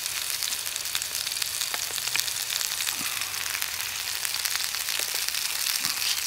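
Two beefsteak burgers frying in a Trangia pan over its spirit burner: a steady sizzle with many small crackles of spitting fat.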